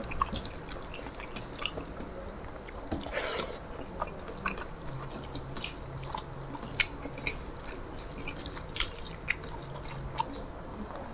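Eating by hand: fingers working rice and curry on steel plates, with chewing and a scatter of small, wet clicks and smacks at irregular intervals.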